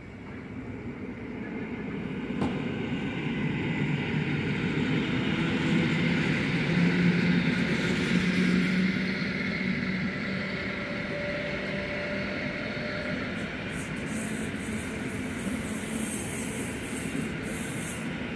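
Two coupled EN57 electric multiple units run past, with wheels on the rails and traction motors running. The sound builds to its loudest about halfway through, then slowly dies away, with a crackling hiss in the last few seconds.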